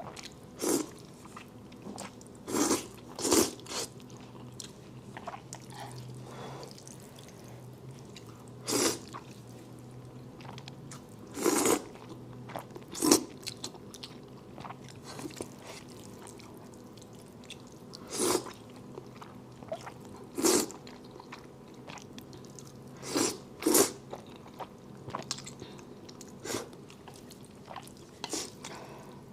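A person eating spicy fire noodles close to the microphone: chewing and biting, with about a dozen short, loud mouth-noise bursts every few seconds.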